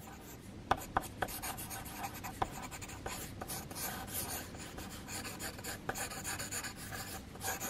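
Pencil sketching on paper: continuous scratchy strokes rubbing across the sheet, with a few sharp ticks in the first two seconds or so.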